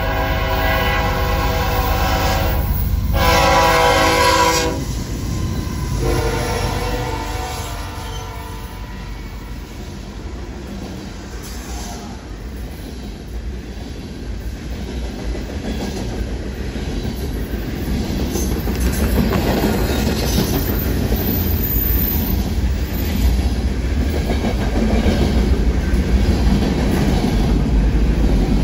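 BNSF GE Dash 9 locomotive's Nathan K5HL five-chime air horn sounding a long blast that ends about five seconds in, then a second, shorter blast that fades. Freight cars then roll past with a steady rumble and wheels clacking over the rail joints, louder near the end.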